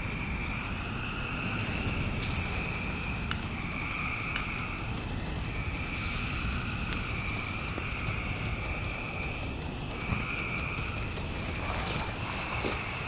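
Night chorus of frogs calling in repeated phrases of about a second, over a steady high insect drone. Beneath them is the low rush of gasoline burning on the ground, with a few sharp pops.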